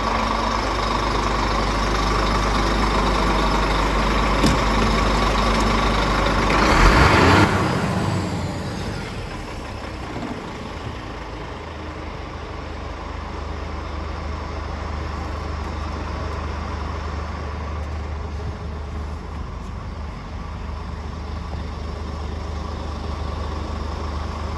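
Scania R440 tractor unit's 440 bhp Euro 5 six-cylinder diesel idling steadily. About seven seconds in there is a loud, brief burst of noise, after which the idle is heard quieter and muffled from inside the cab.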